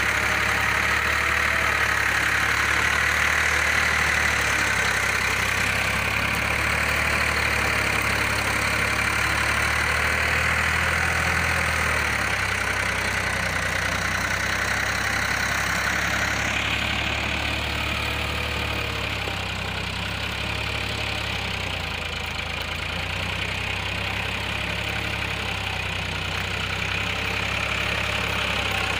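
Farmtrac 45 tractor's three-cylinder diesel engine running steadily under load, pulling a tine cultivator through dry soil in second gear.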